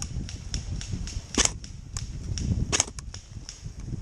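Airsoft rifle firing single shots: two loud, sharp cracks, one about a second and a half in and one near three seconds, with fainter shots from other airsoft guns popping irregularly in between.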